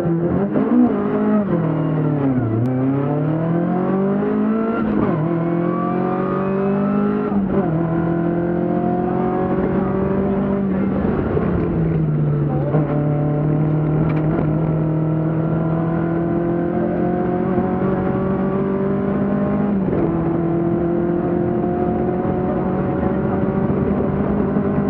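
BMW 2002 Ti rally car's four-cylinder engine accelerating hard from the stage start, heard on board. Its pitch climbs steadily and drops back at each upshift, through several gear changes.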